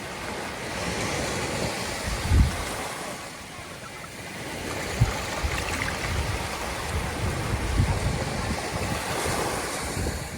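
Ocean surf breaking and washing on a sandy beach, a continuous wash that swells and eases. Low rumbling surges of wind on the microphone come through, the strongest about two seconds in and several more between five and eight seconds.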